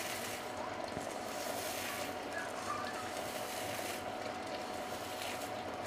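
Steady sizzling of tomato masala cooking in hot oil in a kadhai, with the dry rustle of crisp fried onions being crushed by hand into it.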